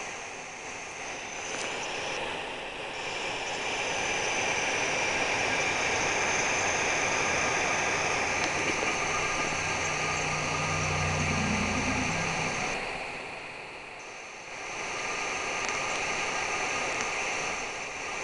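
Steady outdoor rushing noise from a rail webcam's microphone, with a low engine hum from about nine to twelve seconds in; no train passes.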